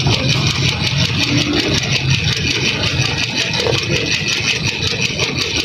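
Ice-shaving machine's motor running steadily, with a fast, even ticking over its hum.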